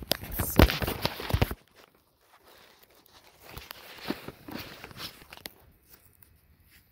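Comic books being handled and shuffled right at the phone's microphone: a loud burst of rustling paper and handling knocks in the first second and a half, then softer rustling a few seconds in.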